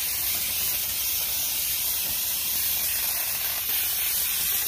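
Hand-held pressure sprayer hissing steadily as it mists wood finish onto a carved sculpture.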